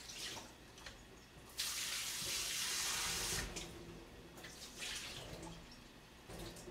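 Kitchen tap running hard for about two seconds while frozen dumplings are rinsed under it, with shorter, weaker splashes before and after.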